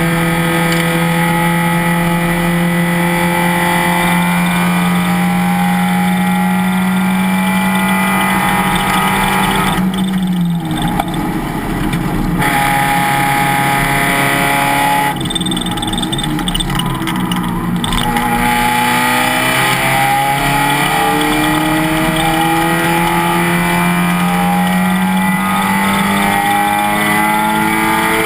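Race car engine running hard under acceleration, its pitch climbing slowly, falling away about ten seconds in and again briefly a few seconds later, then climbing again through the rest of the stretch before dropping right at the end.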